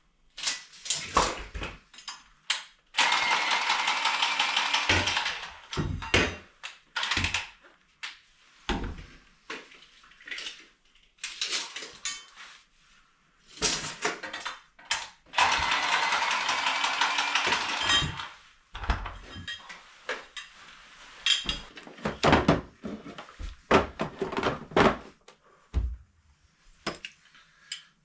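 A small power tool runs in two spells of a couple of seconds each, with a steady whine, amid repeated knocks, taps and clatter of tools and fittings being handled during the basin installation work.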